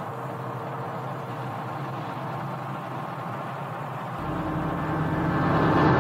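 Steady rumbling hum of an Eagle spacecraft's engines, heard in the cockpit. About four seconds in, low ominous music swells in and grows louder.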